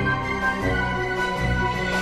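Background music with long held chords over a low bass line.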